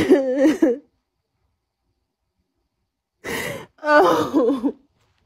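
A woman crying: gasping, wavering sobs in two short spells, broken by about two seconds of dead silence.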